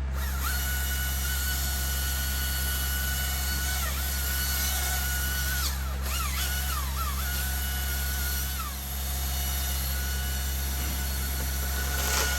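Chainsaw running up in the tree as a big limb is cut: a steady high engine whine that sags in pitch and recovers several times as the chain bites into the wood. A steady low engine drone runs underneath.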